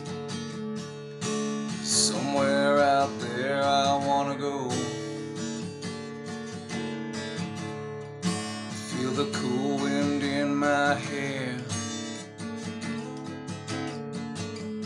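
Acoustic guitar strummed in a steady rhythm. Over it, a man's singing voice comes in twice, near the start and again past the middle.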